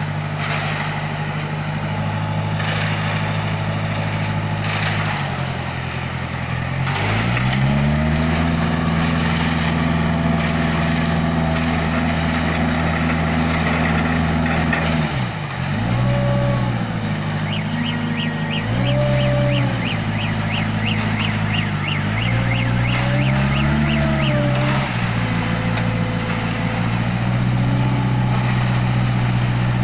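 Self-loading concrete mixer's diesel engine running loud and steady. It revs up about a quarter of the way in and holds, then rises and falls several times as the throttle is worked, before settling. A fast series of light ticks sounds around the middle.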